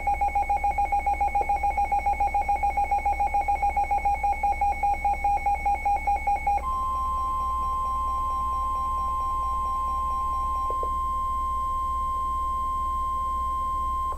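Rapid electronic alert beeping, about six beeps a second, for about seven seconds. Then the NOAA Weather Radio warning alarm tone comes in, one steady high tone held for about seven seconds, with the beeping carrying on faintly beneath it for a few seconds. The alarm tone signals that a warning broadcast follows, here a flash flood warning.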